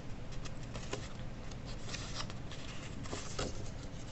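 A paper popup-card cutout being pressed and folded by hand along its score lines: faint, scattered paper crinkles and light taps.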